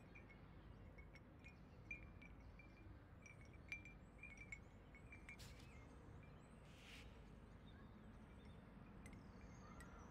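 Faint, scattered clinks of a hanging terracotta bell wind chime over a low, steady background hush, most of them in the first half.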